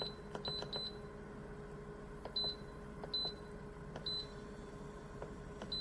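Control-panel buttons of a 12V/24V compressor cooler fridge being pressed: a short high electronic beep with a small click at each press, about seven presses at irregular intervals, while the mode is changed from max to eco. A faint steady hum of the running compressor lies underneath.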